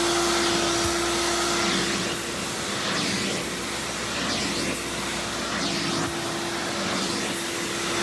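Hoover Dial-A-Matic U6039 clean-air upright vacuum running in tool mode, a steady motor whine with air rushing through the hose. About two seconds in the whine softens and the level drops slightly, with a few brief airy swells.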